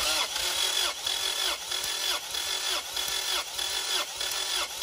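Honda H22 engine cranked over by its starter motor during a compression test on cylinder two, with a steady whirr that sags and picks up again about twice a second as the cylinder comes up on compression against the gauge.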